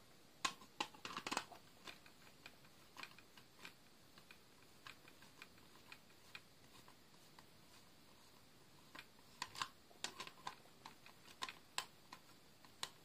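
Faint, scattered clicks and taps of small objects being handled, in three clusters with quiet stretches between.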